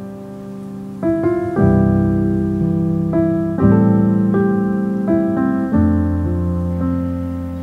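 Background piano music: slow, soft chords and notes, each struck and left to fade.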